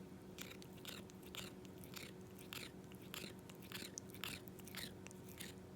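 A cat grinding its teeth: a run of short, grating crunches, about two a second, starting about half a second in.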